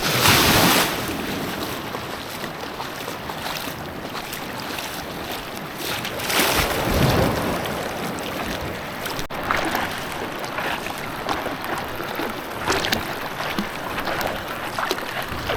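Ocean surf breaking and washing in, with wind rumbling on the microphone. The wash swells louder right at the start and again around six to seven seconds in.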